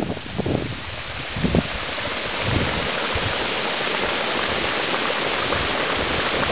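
Small pot of boiling hydrothermal water in a volcanic caldera, bubbling with a steady hiss that grows louder from about two seconds in. Wind buffets the microphone in the first second or so.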